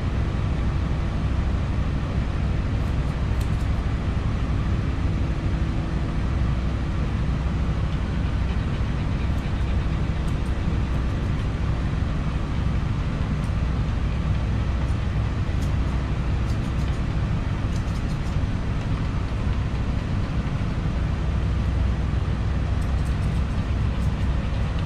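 Steady low hum and rumble of machinery running inside a mobile dog-grooming bus, with a faint steady tone through it. A few faint clicks, likely from grooming scissors, come now and then.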